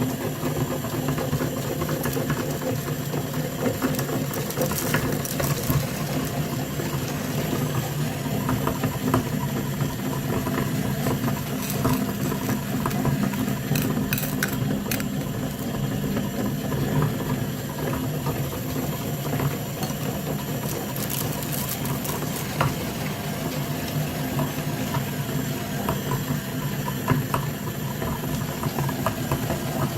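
A small electric motor running steadily, with scattered clicks and rattles over the hum.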